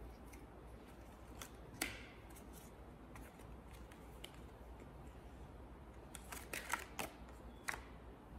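Playing cards being handled: scattered sharp flicks and snaps of the cards, the loudest about two seconds in, then a quick run of them near the end.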